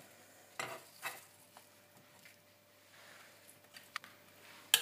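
Kitchen knife cutting a peeled apple on a wooden cutting board: two short chopping strokes against the board about a second in, then faint small taps, and one sharp click near the end.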